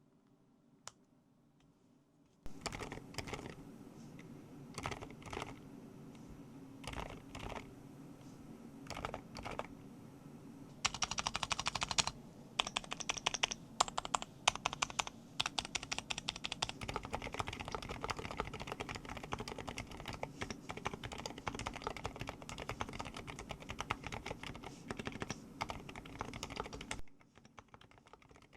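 Typing on a Hertz 87 full-aluminium mechanical keyboard with an FR4 plate and HMX Jelly Banana silent linear switches. It starts a couple of seconds in with scattered single keystrokes, turns to fast continuous typing about eleven seconds in, and stops shortly before the end.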